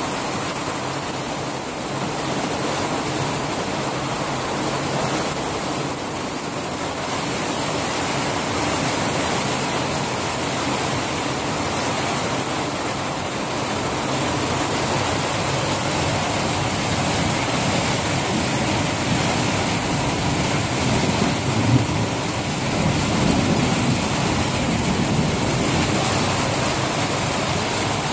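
Heavy rain mixed with hail pelting down in a thunderstorm: a dense, steady, really noisy rush with no break, swelling slightly now and then.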